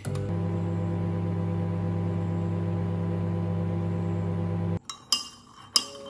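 Microwave oven running with a steady hum while it heats a mug of coffee; the hum cuts off suddenly about five seconds in. A metal spoon then clinks sharply against the ceramic mug a few times as the coffee is stirred.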